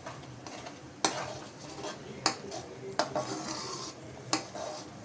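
Steel spoon stirring a thick gravy in a metal kadai, scraping the pan and knocking against it four times, over a low sizzle of the gravy cooking.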